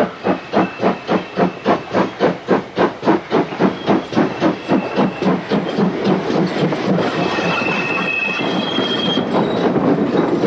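Steam locomotive City of Truro, a GWR 'City' class 4-4-0, working a train, its exhaust beating sharply at about four beats a second as it approaches. About six seconds in the beats blur into a steady rush of steam and running gear as the engine and tender pass close by.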